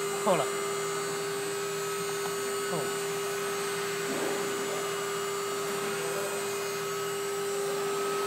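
CNC router spindle running at speed with a steady, even hum, the bit spinning without cutting.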